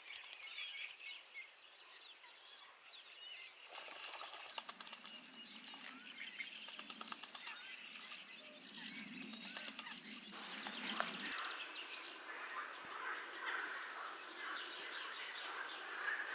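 Small songbirds chirping and singing, with a run of rapid clicks about four to eight seconds in and a low hum underneath that cuts off about eleven seconds in.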